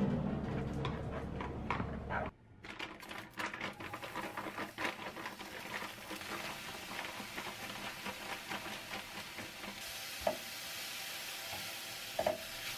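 Brief clicks over a low hum. Then cauliflower rice is poured into a ceramic-coated wok and stir-fried with a spatula, to dry it out: a steady sizzle, with the spatula scraping the pan a couple of times near the end.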